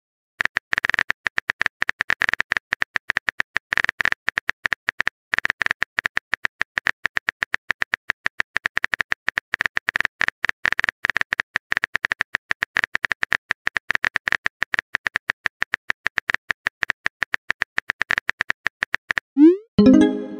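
Texting-app keyboard typing sound effect: rapid clicks, many a second, as a long message is typed out. Near the end a short rising tone and a louder chime as the message is sent.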